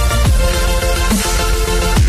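Electronic music with a heavy bass line and a falling pitch sweep about a quarter second in.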